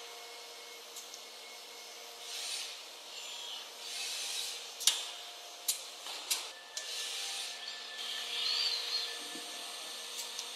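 Brother industrial robot loader with a pneumatic gripper working at a CNC machining centre: a steady machine hum with repeated short hisses of air and a few sharp clicks around the middle.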